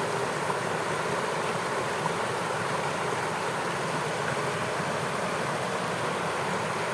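Steady rushing of shallow flowing water, even and unbroken.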